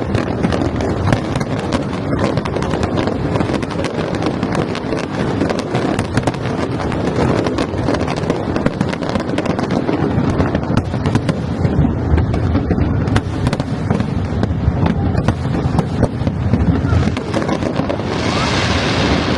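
A fireworks display with shells bursting and crackling in a dense, continuous barrage, with crowd voices underneath. A hissing crackle swells near the end.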